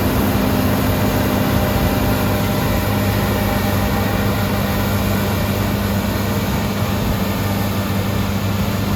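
Combine harvester running steadily while cutting winter barley: a constant heavy engine drone with a steady low hum under machinery noise.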